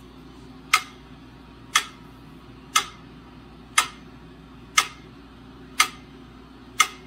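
Mechanical pyramid metronome ticking steadily at about one sharp tick a second (60 beats per minute).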